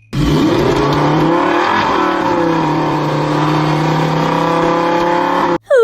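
Racing motorcycle engine sound effect, revving: the pitch rises and falls over the first couple of seconds, then holds a steady high note. It starts and stops abruptly.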